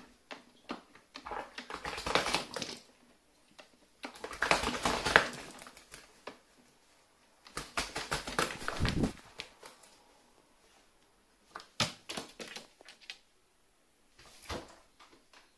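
Carrion crow bathing in a plastic bucket of water: bouts of splashing and wing-flapping, about five of them, each a second or two long, with short pauses in between.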